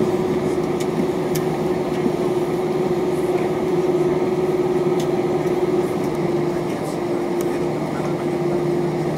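Airbus A321 cabin noise while taxiing: the jet engines' steady hum with a constant mid-pitched tone running through it, and a few faint clicks.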